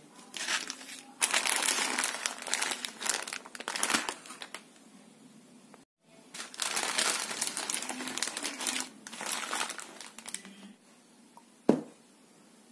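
Plastic wrappers of Indomie instant noodle packets crinkling as they are handled, in two long stretches with a short break between. Near the end, a single sharp knock as a small glass bowl is set down.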